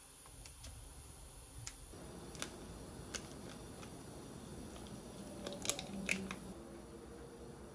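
A small plastic packet of parmesan cheese powder crinkling and being tapped as the powder is shaken out, with scattered soft clicks and a sharper cluster of clicks about five and a half to six seconds in.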